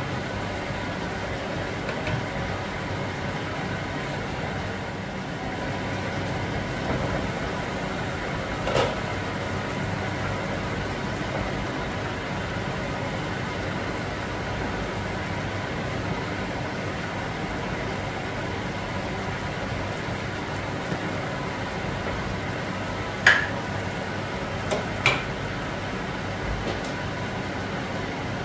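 A pot of soup boiling on a lit gas stove gives a steady low rushing noise, with a few sharp knocks of a plastic ladle against the pot, the plainest two close together near the end.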